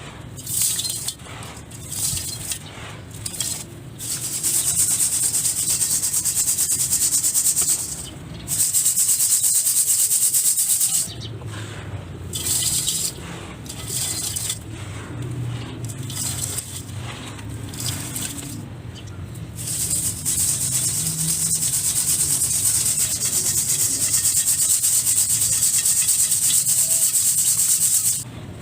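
Dry, crumbly material being crumbled and rubbed, a dense gritty rustle that comes in short bursts and then long stretches, the longest and loudest from about 4 to 8 s, 9 to 11 s and 20 to 28 s.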